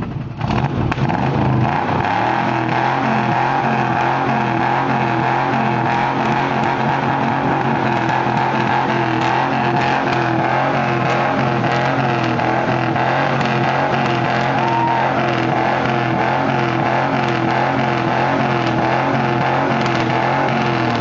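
Pickup truck engine idling loudly through a glass pack exhaust, a steady rumble with a regular lope and no revving.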